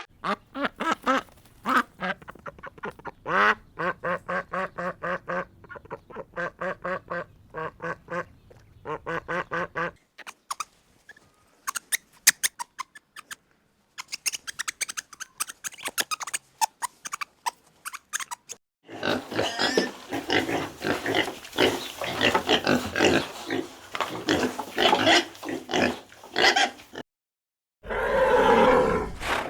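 Ducks quacking in quick runs of several calls a second, with a sparser stretch of short clicks and calls in the middle and a denser, noisier run of animal calls later on.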